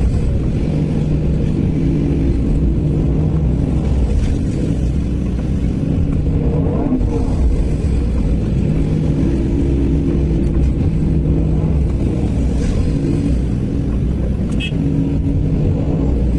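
Diesel engine of a Sany SY215C hydraulic excavator running steadily while it works, its engine note strengthening and easing several times as the load comes and goes.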